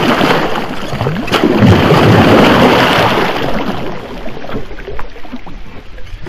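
Loud rushing water noise, easing off about four seconds in.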